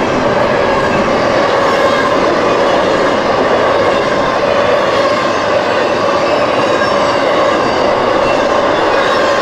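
Freight train rolling past at close range: a loud, steady rumble of railcars with a steady whining tone held over it.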